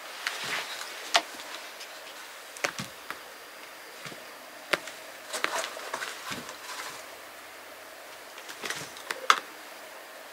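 A cat playing on a rug: light rustling with scattered sharp clicks and taps as it rolls and bats at a toy and knocks a paper box helmet off its head. The loudest clicks come about a second in and again near the end.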